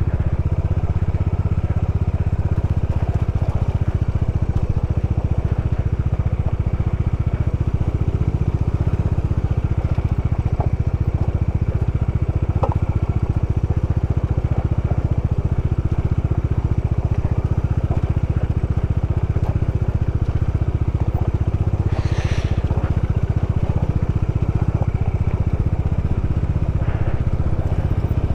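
Bajaj Dominar 400 motorcycle, a single-cylinder engine, running steadily at low speed while riding down a rough, rocky off-road track, with a continuous low rumble. One brief sharp rattle comes late on.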